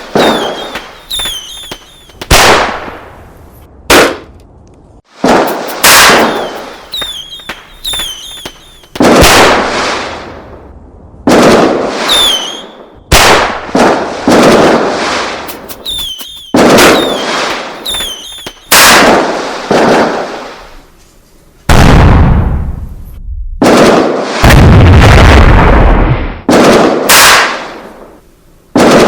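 A run of loud, sudden bangs, one every second or two, each dying away in a long echo: sharp cracks like gunshots or fireworks. Near the end come two longer, deeper booms.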